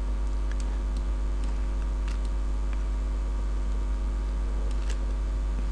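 Steady low electrical hum on the recording, with a few faint clicks from a computer mouse being used.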